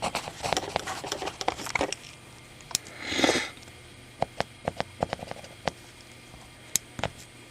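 Scattered light clicks and taps of mechanical pencils being handled, with a short sniff about three seconds in.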